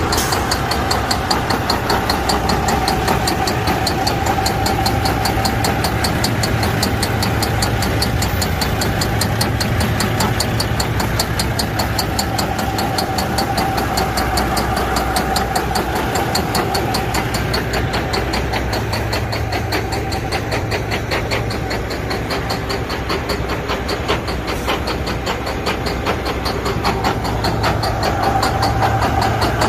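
Detroit Diesel Series 60 14.0 L inline-six idling with a steady, rapid train of even pulses. It is running poorly on bad fuel injectors that leak and stick open.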